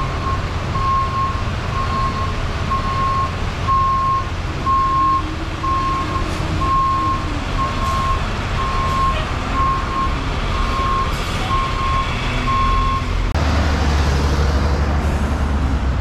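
A truck's reversing alarm beeping about once a second over the low, steady running of a diesel truck engine. About 13 seconds in the beeping stops and the engine rumble grows louder.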